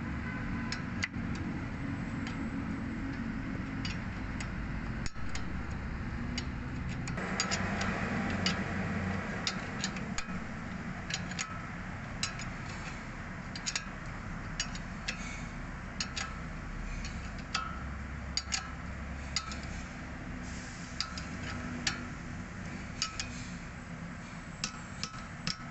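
Short metal clinks and clicks at uneven intervals, a few a second, as a 14 mm combination wrench is worked on a bolt of the rear brake caliper, over a steady low background noise.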